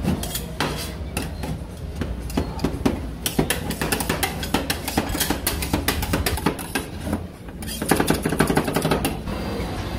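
Metal spatulas chopping and scraping ice cream mix on a chilled stainless-steel plate: rapid, irregular metallic taps and scrapes, thickest and loudest near the end, over a steady low hum.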